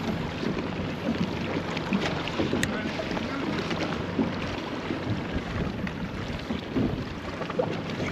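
Wind buffeting the microphone over water lapping and slapping against a small boat's hull in a light chop.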